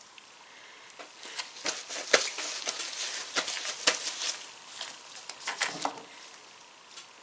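Small metal ratchet parts being handled on a bench: irregular light clicks and knocks over a rubbing, scraping noise. It starts about a second in and dies away about six seconds in.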